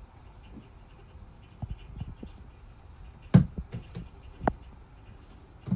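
A few short, scattered clicks and knocks, the loudest about three and a half seconds in and another about a second later.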